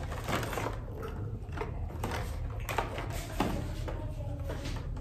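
Cardboard gift box being handled and set down: a few sharp knocks and light rustles of the box, the sharpest about three seconds in, over a steady low hum.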